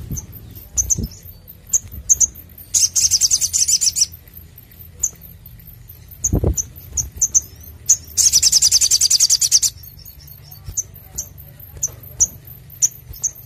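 Olive-backed sunbird singing: sharp, high chirps repeated every half second or so, broken by two fast rattling trills, one about three seconds in lasting about a second, the other about eight seconds in lasting a second and a half. Two soft low thumps come about a second and about six seconds in.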